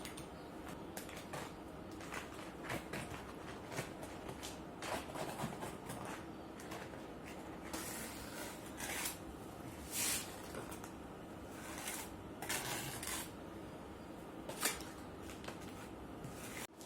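Metal parts and tools handled on a workbench: irregular clinks, knocks and short scrapes, a few louder ones spread through, over a faint steady hum.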